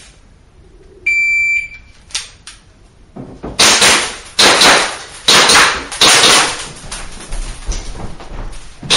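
Electronic shot timer beeps once with a steady high tone, and about two seconds later a pistol is fired in a string of loud shots, roughly one a second, each ringing in the indoor range.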